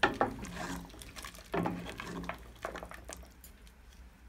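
Wooden spoon knocking and scraping against the inside of a stainless steel pot while stirring a thin meat curry, several knocks in the first three seconds; it dies away near the end.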